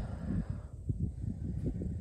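Low, gusty wind rumble on the microphone, with no distinct event.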